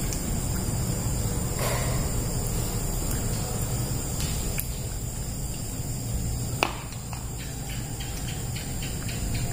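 Steady high-pitched insect chirring over a low background hum, with a sharp click about six and a half seconds in and a run of faint quick ticks near the end.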